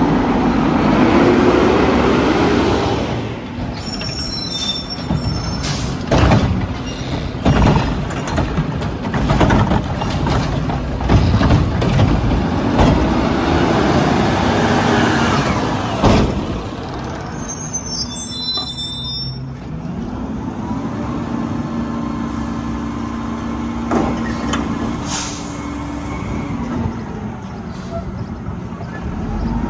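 Mack front-loader garbage truck working a pickup: the engine and hydraulics rise and fall in pitch as the arm cycles. Several loud metal bangs come in the first half, and a steady hum runs through most of the second half.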